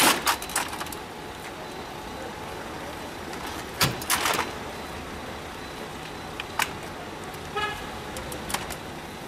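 Street traffic in the background, with sharp clacks and rattles from a metal ambulance stretcher being handled and wheeled, loudest at the start and again about four seconds in. A short car-horn toot comes near the end.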